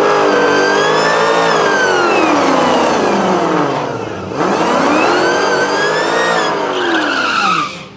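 Dodge Challenger SRT Demon's supercharged 6.2-litre Hemi V8 under hard throttle. Its pitch climbs and then eases back down, twice, with a short break about four seconds in.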